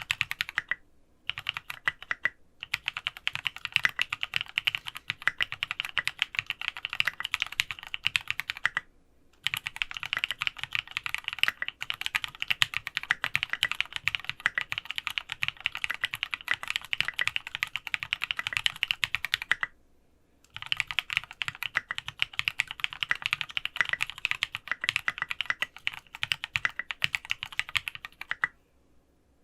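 Fast typing on a Sangeo65 mechanical keyboard with ABS SA-profile keycaps (SA Oblivion v2), lubed Cherry Cream switches on an aluminium plate and case foam. The rapid keystrokes come in long runs broken by brief pauses about a second in and at around 9 and 20 seconds, and stop shortly before the end.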